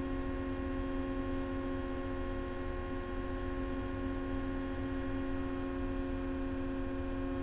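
Cat small wheel loader heard from inside the cab, engine held at high idle, about 1,800 rpm, while the hydraulics slowly raise the empty bucket to full lift for payload-scale calibration. It is a steady hum with a strong even tone.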